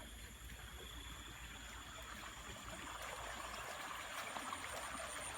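Rainwater flowing steadily in a stream, an even rushing sound that grows a little louder toward the end.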